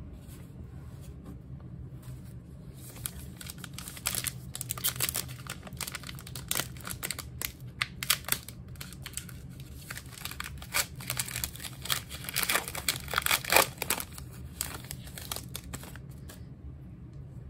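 A trading-card pack's foil wrapper being crinkled and torn open by hand: irregular crackles and rips starting a few seconds in, loudest about three-quarters through, and stopping shortly before the end.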